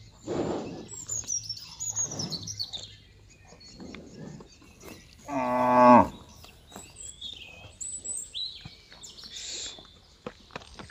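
A cow gives one short, loud moo about five seconds in. Two noisy tearing bursts near the start and about two seconds in come from cattle grazing close by. Birds chirp in the background.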